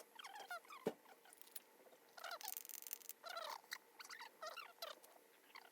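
Wood fire in an open fire pit burning, with short squealing whistles, light crackles and one sharp pop about a second in.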